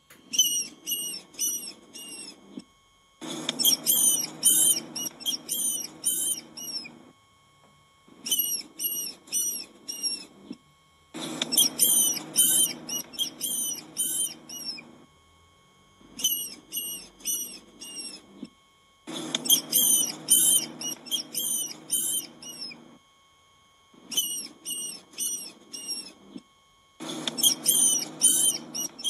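Rodent squeaking: rapid high-pitched squeaks, several a second, in bursts of two to four seconds with short silences between.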